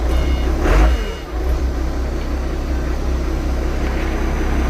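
Diesel forklift engine idling steadily, with a short swell of noise about a second in. The truck is stationary: it still won't drive in gear.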